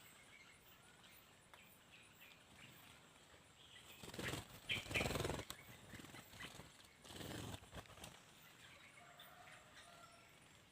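Two loud bursts of wing flapping from birds at a bird bath, about four seconds in and again about seven seconds in, over faint bird chirps.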